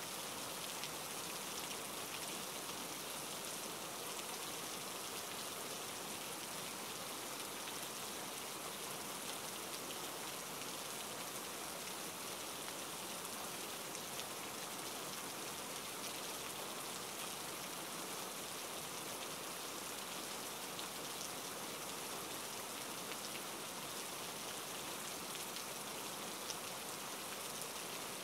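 A steady, even hiss with faint fine crackles, like light rain.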